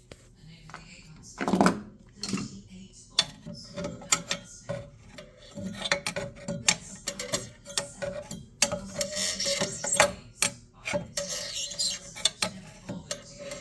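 Irregular clicks, knocks and scraping of tools and metal parts on a Trane furnace's draft inducer, which has locked up on debris that is being cleared out of it. The loudest knock comes about a second and a half in.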